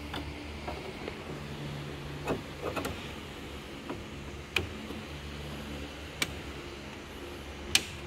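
Hard plastic clicks and snaps as the cover pieces of a mini-split air conditioner's indoor unit are handled and clipped into place: about five sharp clicks, the loudest near the end, over a steady low hum.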